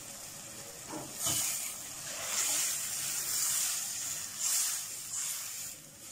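Water poured into a hot steel pot of frying masala and beans, hissing and spitting as it hits the hot oil. The hiss starts about a second in and comes in several surges, easing off near the end.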